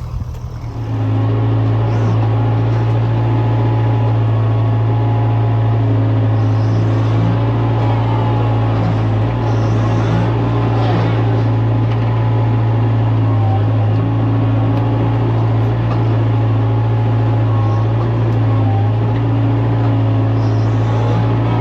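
Engine of a heavy earthmoving machine running steadily at constant speed, a loud, even, low hum that comes in about a second in.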